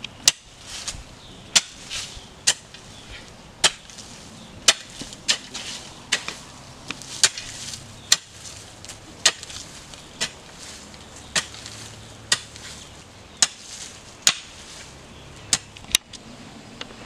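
Hand hoe (jembe) chopping into soil while weeding, with sharp strikes coming about once a second at an uneven pace.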